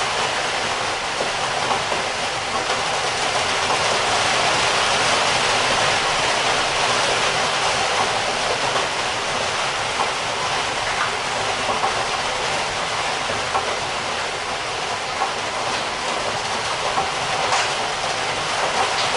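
Heavy rain heard from indoors: a steady, dense hiss of downpour with scattered small ticks of individual drops.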